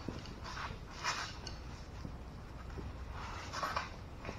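Faint scuffing and rubbing of a small knobby go-kart tire being pressed down by hand on its rim to break the bead, with a few short scrapes and a light click near the end.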